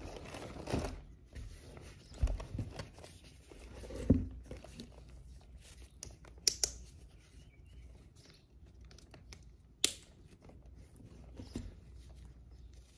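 Canvas tote and cotton drawstring pouch rustling as items are handled and pulled out, with two low knocks of things set on the table and two short sharp clicks later on.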